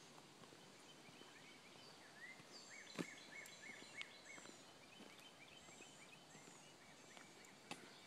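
Faint songbirds calling in a woodland: thin high notes throughout and a run of short, quickly repeated chirps in the middle. Two sharp taps stand out, about three and four seconds in.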